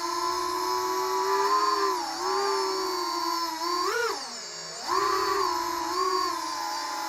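Transtec Beetle micro FPV quadcopter's motors and guarded propellers whining, the pitch wavering as the throttle changes. About four seconds in, the whine sags and falls sharply in pitch as the throttle is backed off, then jumps back up near five seconds.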